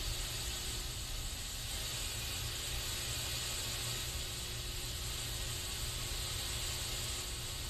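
Aerosol spray can hissing steadily without a break, the hiss sitting high in pitch, over a faint low rumble.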